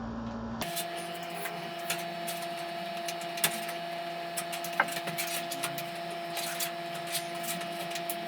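Scattered light clicks and knocks of computer case parts being handled and taken off, over a steady electrical hum. The background changes abruptly a little under a second in.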